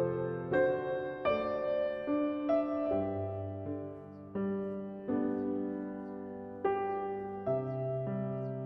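Soft background piano music, slow chords with each note left to ring.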